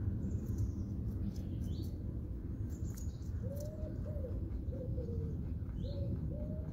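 A dove cooing in a run of short, low calls from about halfway through, with small birds chirping high and briefly earlier on. A steady low rumble runs underneath.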